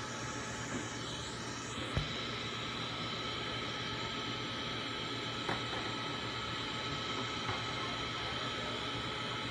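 Minute Key kiosk's automated key-cutting machine running while it cuts a key: a steady mechanical whine over a low hum, with two sharp clicks about two and five and a half seconds in.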